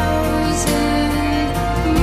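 A slow, tender song with steady instrumental chords and a bass line, and a soft vocal.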